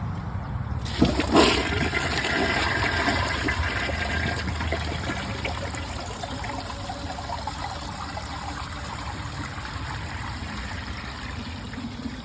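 2018 Mansfield Summit dual flush toilet flushing with a rag in the bowl: a sharp start about a second in, then rushing water that slowly tapers. The rag catches in the trapway and the flush does not clear, leaving the bowl filling toward overflow.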